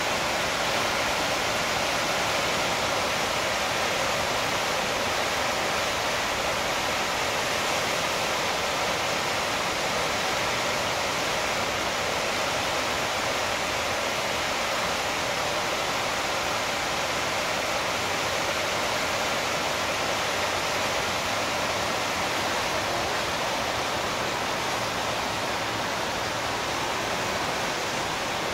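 Floodwater of the Los Angeles River rushing and churning through its concrete channel, a steady, unbroken roar of water.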